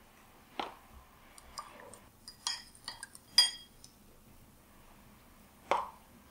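Metal spoon clinking against a ceramic bowl: a quick run of sharp, ringing clinks in the middle, with a few soft knocks around them.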